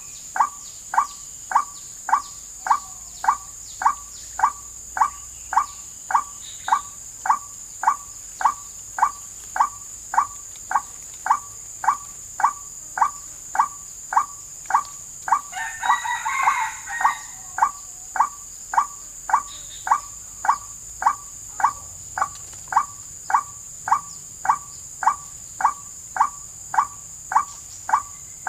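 White-breasted waterhen (wak-wak) call played as a lure recording: one short call repeated with machine-even timing, about two a second. Midway a brief burst of a different, rougher bird call breaks in, over the steady high drone of forest insects.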